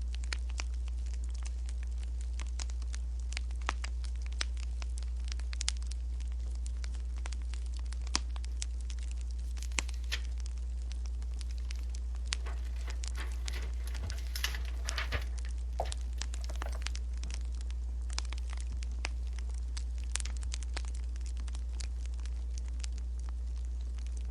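Wood fire crackling with many scattered sharp pops and snaps over a steady low hum, and a denser rustle between about 12 and 16 seconds in.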